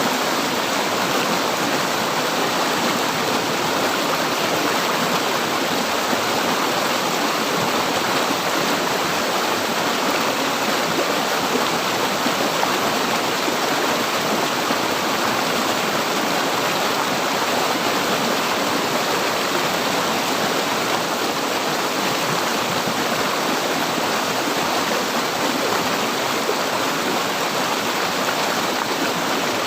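River water flowing and rushing over rocks, a steady, unbroken rush.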